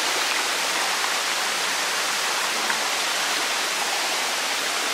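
Water of a shallow rocky stream running and splashing over stones, a steady rush close to the microphone.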